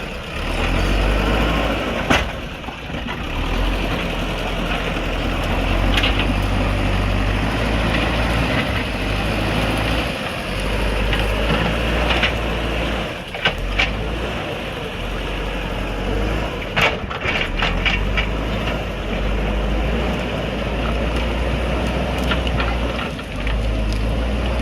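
JCB backhoe loader's diesel engine running steadily, with a few sharp knocks and clanks scattered through.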